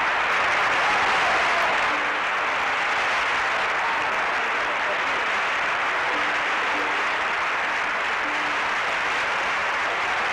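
Audience applause: steady, dense clapping that swells in at the start and cuts off abruptly at the end.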